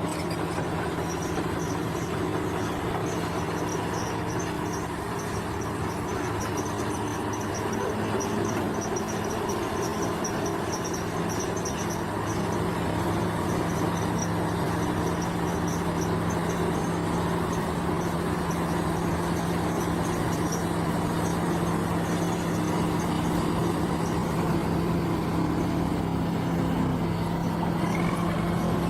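Diesel engine of heavy earthmoving machinery running steadily, getting a little louder about twelve seconds in, with insects chirping in a high pulsing trill.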